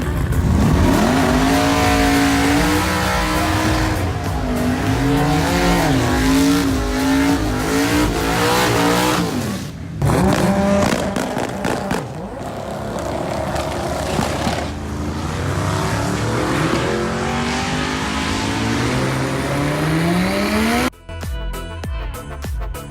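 Car engine revving hard under acceleration, its pitch climbing and falling back several times. A long steady climb ends suddenly about 21 s in, when music takes over.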